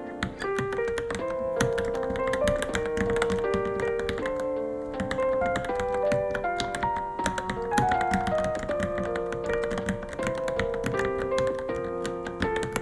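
Rapid typing on a Varmilo Minilo mechanical keyboard, a fast run of keystroke clicks, over background music with melodic notes.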